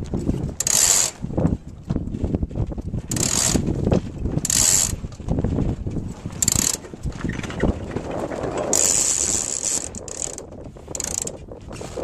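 Hunter 260 sailboat's jib sheet winch ratcheting in about six short bursts as the jib sheet is hauled in to trim the sail.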